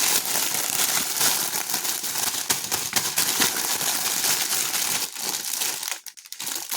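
Plastic packaging crinkling and rustling as it is handled, with dense crackles. It thins out and stops about five seconds in.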